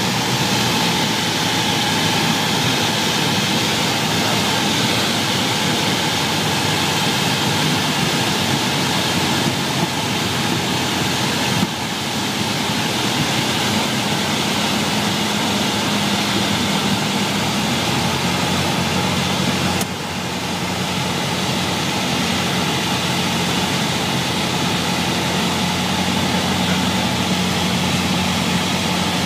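Cockpit noise of a single-engine light airplane's piston engine and propeller in flight: a steady, loud drone. The engine note drops in steps about twelve and twenty seconds in, as power is reduced on the approach to landing.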